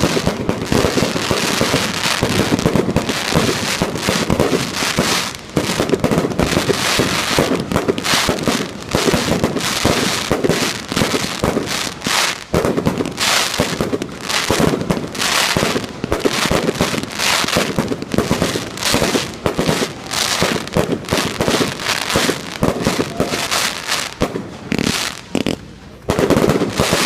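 Aerial fireworks bursting in a dense, continuous barrage of bangs and crackles, briefly thinning out near the end before a last loud burst.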